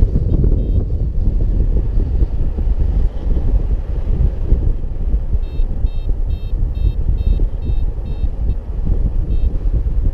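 Wind buffeting the camera microphone in paraglider flight, a steady low rumble. Over it a variometer beeps faintly, twice near the start, then in a quick run of short beeps from about halfway in and once more near the end: the climb tone that signals rising air.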